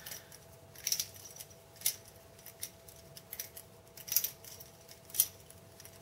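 Balisong (butterfly knife) being flipped by hand: a handful of sharp metallic clicks and clacks at uneven intervals as the swinging handles strike each other and the blade.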